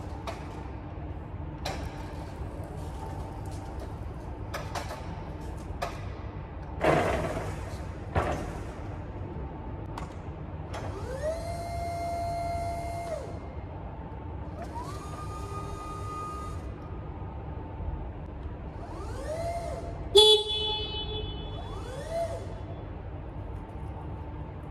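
Electric hydraulic pump motor of a Still EXV 20i pedestrian stacker whining as the forks are worked, several times: each whine rises in pitch, holds steady for a second or two, then falls away. Clicks and a knock come from the tiller controls and mast, and a short, loud, sharp tone sounds about twenty seconds in.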